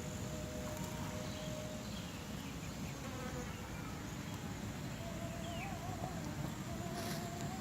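A flying insect buzzing with a thin, wavering drone that fades in and out, over steady low outdoor rumble.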